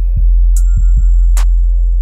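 Electronic background music: a deep, steady bass with a beat of sharp drum hits and a short rising synth figure repeating.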